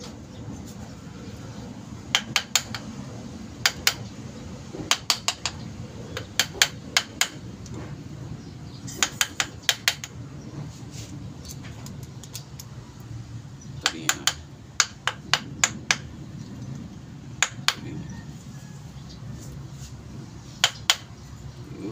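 Sharp metallic taps and clinks of hand tools on metal steering box parts, coming in quick clusters of two to five at irregular intervals, over a low steady background hum.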